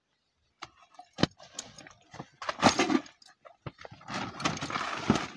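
Camping gear being handled and pushed into a nylon dome tent: a few sharp clicks and knocks, then bouts of rustling from fabric and packs, the loudest near the end.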